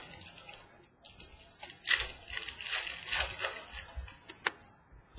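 Rustling and crinkling of a trading-card pack's wrapper and cards being handled, with a few sharp clicks, loudest in the middle.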